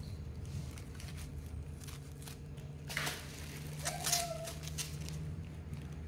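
Hands handling fruit in a plastic basket, lifting foam-netted fruit: light rustles and knocks, the loudest about three and four seconds in, the second with a brief pitched sound. A steady low hum runs underneath.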